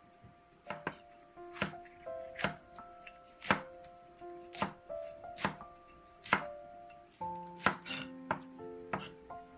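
Cleaver slicing ginger and then green chili peppers on an end-grain wooden cutting board, the blade knocking on the board about once a second and a little faster near the end.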